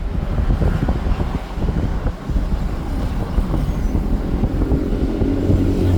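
A vehicle driving along a road: low engine and road rumble with rattles and knocks, and wind buffeting the microphone. A steadier low engine hum comes in near the end.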